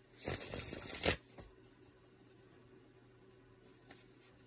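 Tarot cards being shuffled: one dense burst of shuffling about a second long near the start, then a light tap and a few faint ticks.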